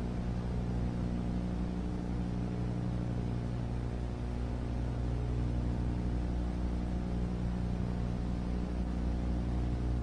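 A steady low hum with several overtones, unchanging throughout.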